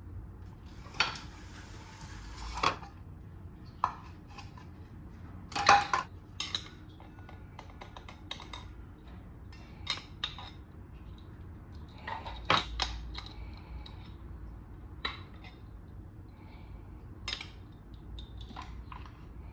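Dishes and cutlery clinking and knocking at irregular intervals, loudest about six seconds in and again about twelve and a half seconds in, with a short hiss near the start.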